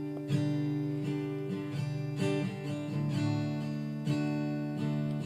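Acoustic guitar strummed, sustained chords with a fresh stroke roughly every half-second to second.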